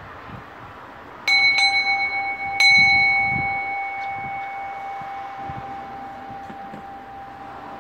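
Brass Buddhist bowl bell struck three times, two quick strokes and then a third about a second later, each ringing out in a long, slowly fading tone.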